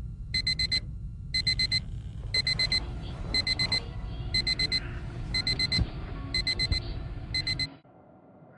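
Digital alarm clock beeping in quick groups of four, about one group a second, then stopping suddenly near the end.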